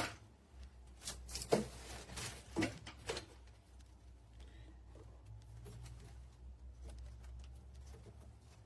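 Plastic dishwasher accessories and packaging being handled: a sharp knock at the start and several more clicks and knocks in the first three seconds, then faint rustling and handling over a low steady hum.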